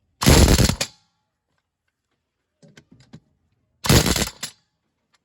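Pneumatic impact wrench on the tractor's wheel nuts, two short bursts of rapid hammering, each under a second long, with light clicks of the socket being fitted in between.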